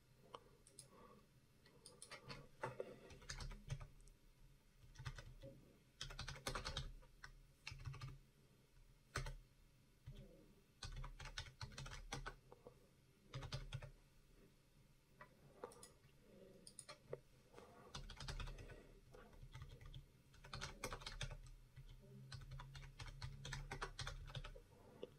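Faint computer keyboard typing in irregular bursts of keystrokes, with scattered clicks between them.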